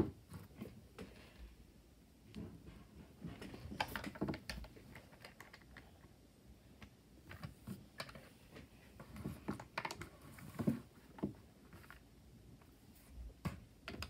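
LEGO bricks clicking and tapping against each other as a LEGO puzzle box is handled and its pieces moved: scattered, irregular small plastic clicks.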